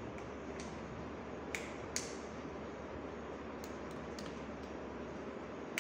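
A few scattered sharp clicks, the loudest about two seconds in, over a steady hiss of room noise.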